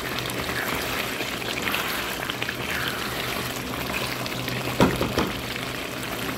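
Beef in a thick spice masala sizzling and bubbling in a pan as it is stirred and fried down (bhuna) with a spatula, over a low steady hum. Two sharp knocks about five seconds in.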